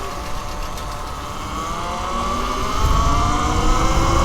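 Talaria Sting R electric dirt bike's motor whining and rising steadily in pitch as the bike pulls away and gathers speed. Wind rumble on the microphone gets louder from about three seconds in.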